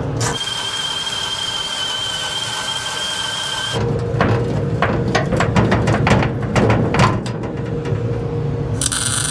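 Hand tools working on a kei truck's bare steel cab: a steady high whine for the first few seconds, then a run of irregular clicks and knocks, with a hiss of noise setting in near the end.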